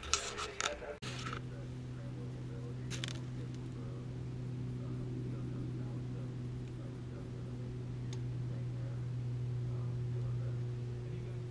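Steady low hum, with handling knocks in the first second and a faint click about three seconds in.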